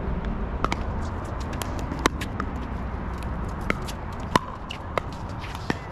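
Pickleball rally: several sharp pocks of paddles striking a hollow plastic ball, at uneven gaps of about half a second to a second and a half, over a steady low rumble.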